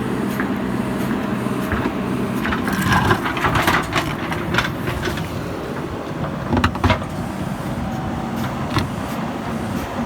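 JCB backhoe loader's diesel engine running steadily, with a run of clanks and knocks from about three to five seconds in and two more sharp knocks a little before seven seconds.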